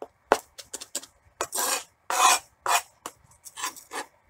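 Gloved hands scraping and sweeping chopped parsley together on a plastic cutting board: a few short scrapes and taps, with two longer scrapes in the middle.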